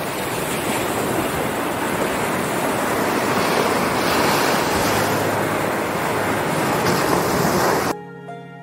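Small waves breaking and washing up a sandy shore, a steady rush of surf. It cuts off suddenly about a second before the end, and soft music starts.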